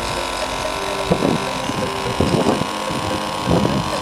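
Small motor of a mini water pump humming steadily with a high whine, broken by three short noisy bursts about a second apart.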